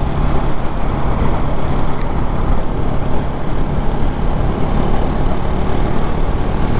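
Motorcycle riding at steady speed: the engine running under a loud, even rush of wind and road noise on the rider's microphone.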